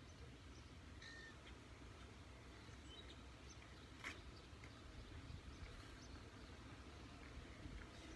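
Near silence: faint low background rumble with a few faint, brief bird chirps and one soft click about four seconds in.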